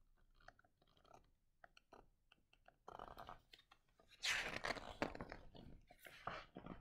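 Paper pages and cover of a large hardback picture book rustling and scraping as it is handled and shut, with faint clicks first and the loudest crackling rustle about four seconds in.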